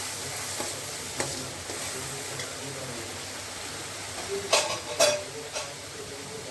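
Onion, garlic and green-chilli paste sizzling in mustard oil while a spoon stirs it, with a steady hiss. The spoon knocks sharply against the pan once about a second in and twice, loudest, at about four and a half and five seconds.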